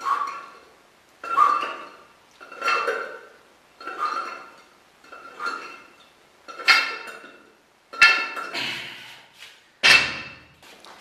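Loose cast-iron weight plates clanking against the barbell sleeves, once with each repetition as the bar is raised and lowered, about every 1.3 seconds, each clank ringing briefly. The last two clanks are louder, and the final one is heavier and deeper.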